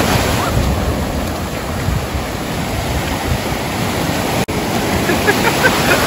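Ocean surf breaking and washing up the sand, a steady rushing wash. The sound briefly cuts out once, about four and a half seconds in.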